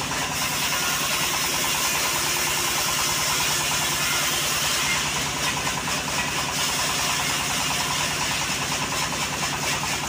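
A homemade engine-driven band sawmill running steadily, its engine pulsing in an even rhythm with no change in speed.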